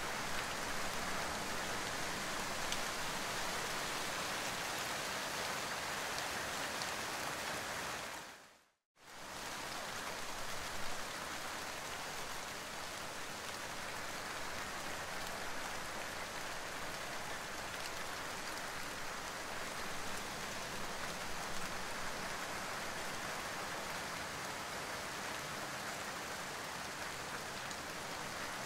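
Rain falling steadily, an even hiss of drops. About eight seconds in it fades out to silence for a moment, then cuts back in abruptly.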